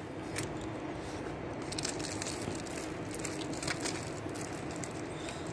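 Quiet room noise with a few faint, scattered clicks and rustles.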